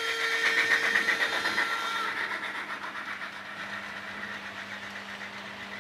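HO-scale model train, a steam locomotive with passenger coaches, running along the track with a fast, even clatter and a steady whine that stops about two seconds in. The sound fades gradually as the train moves away.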